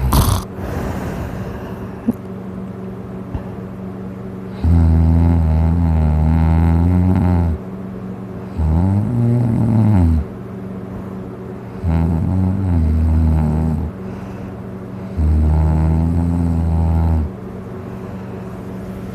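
A person passed out drunk on their back, snoring loudly: four long, droning snores about three and a half seconds apart, the second one rising and then falling in pitch.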